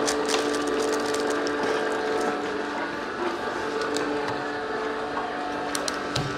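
Vertical slow (masticating) juicer running with a steady motor hum, while its auger grinds apple pieces with short, irregular crackling and crunching.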